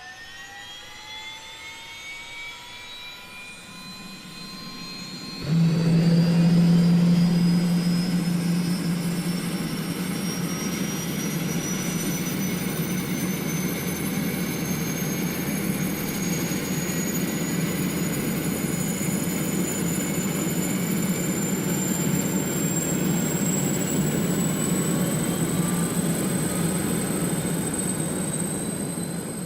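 A machine's whine spooling up: several pitches climbing from the start and rising slowly throughout. About five seconds in the sound jumps suddenly louder, with a strong low hum under it, then runs steadily.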